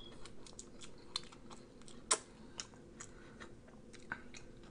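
Faint, scattered wet mouth clicks and smacks of someone chewing French fries close to the microphone, one louder click about two seconds in.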